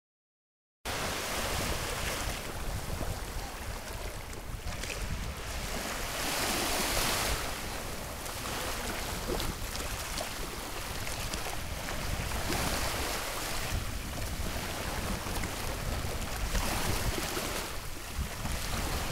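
Small waves washing onto a sandy beach, the wash swelling every few seconds, with wind rumbling on the microphone. It starts about a second in, after silence.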